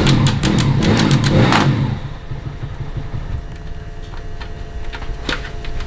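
Bajaj Pulsar 135's single-cylinder engine running with a quick run of clicks, then dropping to a quieter idle about two seconds in.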